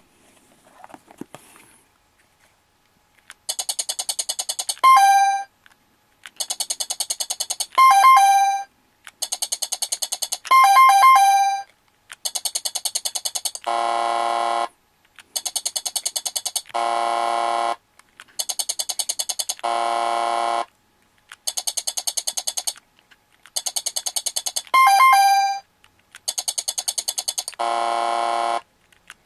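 Quiz-show sound-effect box playing electronic answer cues over and over: each time a rapid pulsing tone, then either a short two-note correct-answer chime or a low wrong-answer buzzer. The correct-answer chime ends the first three rounds, the buzzer the next three, then one more chime and one more buzzer.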